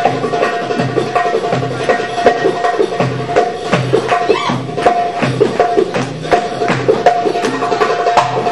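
Live Arabic hand drums playing a fast belly-dance drum solo rhythm, deep low strokes mixed with sharp high strokes, over a steady held note.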